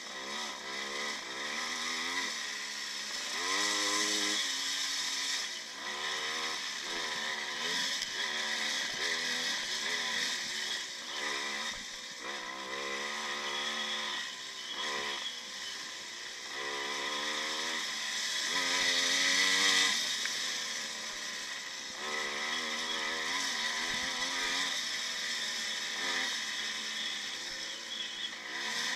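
1955 Maico two-stroke single-cylinder motocross engine racing, heard from a camera on the bike: the engine note climbs and drops again and again as the rider accelerates, shifts and backs off through the corners, over wind and dirt noise.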